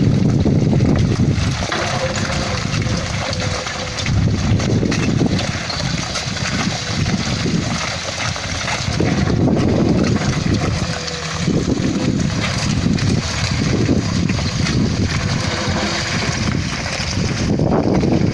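Wind buffeting the microphone in uneven gusts, a heavy rumble that swells and drops every second or two over a steady hiss.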